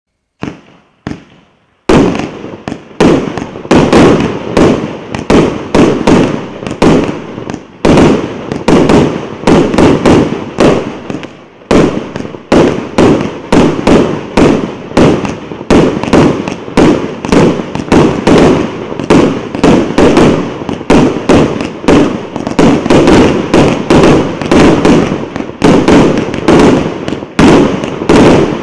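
Multi-shot consumer fireworks cake (brocade crown with silver strobe) firing a rapid series of shots. After a few faint pops, sharp bangs come about two to three a second, with a hiss between them.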